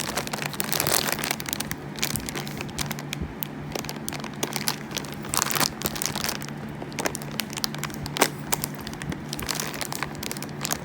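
Cough drop packaging being handled: irregular crinkling and crackling of a wrapper, with many sharp little clicks, over a steady low hum.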